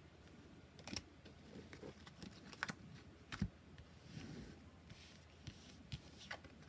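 Oracle cards being handled: a scattering of soft taps and clicks as cards are set down and moved, with a brief papery rustle a little past the middle.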